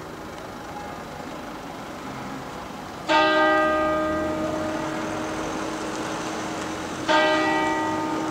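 A church bell in the Marble Church's dome lantern strikes twice, about four seconds apart. Each stroke rings on with a rich, many-toned hum that fades slowly.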